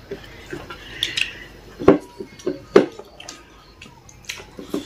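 Close-up eating sounds: cutlery clicking and knocking against a dish, with chewing. There are a few sharp clicks, the loudest about two and three seconds in.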